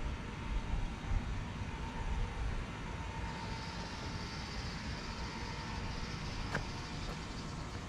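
Hakodate city streetcar at the depot: a low rumble with a steady electrical hum. A higher hiss joins about three seconds in, and two sharp clicks come near the end.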